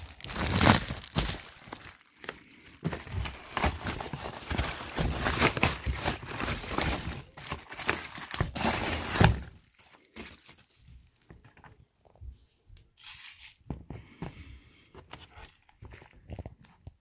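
Bubble-wrap bag crinkling and rustling loudly as it is pulled open and off a boxed cordless impact wrench, stopping abruptly about nine seconds in. After that only quiet handling clicks and light knocks.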